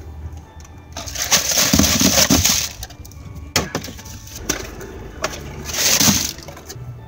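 Plastic-wrapped snack cakes dumped from a plastic shopping bag into a plastic storage bin: wrappers and bag crinkling and rustling in two loud bursts, one about a second in and one around six seconds in, with light clatters of packages landing between.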